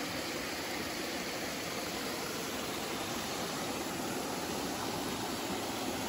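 Steady rushing of a mountain stream's flowing water.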